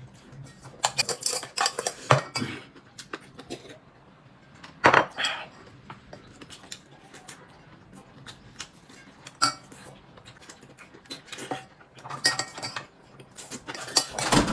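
Tableware clinking at a meal: utensils knocking and scraping against bowls and plates in irregular clusters of short clicks.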